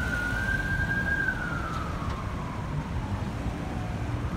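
Emergency vehicle siren wailing: a slow rising and falling tone that peaks about a second in, slides down over the next three seconds, and starts to rise again at the end. Under it is a low rumble of traffic.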